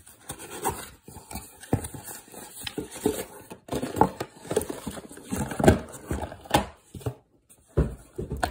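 Cardboard box being opened and handled: irregular rustling, scraping and light knocks as the lid comes off and the contents are lifted out.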